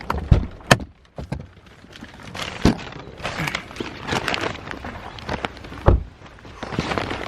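Car door thudding shut with a latch click, then footsteps and a few more knocks, the loudest knock about six seconds in.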